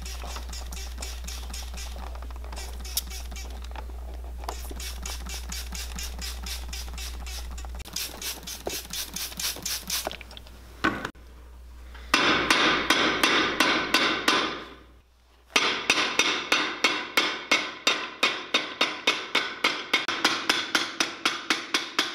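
Cobbler's hammer rapidly tapping a soaked, thin leather insole inside a cowboy boot to flatten out a warp worn into it. The strikes come about three a second through the second half, with a brief pause in the middle. They follow a softer, steadier stretch with faint ticking.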